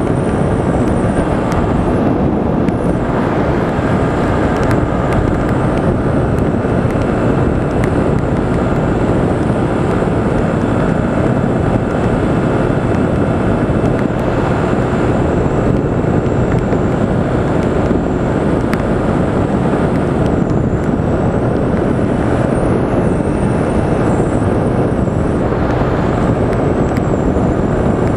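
Motorcycle cruising steadily at about 110 km/h: loud, even wind rush on the microphone over the drone of the engine and tyres.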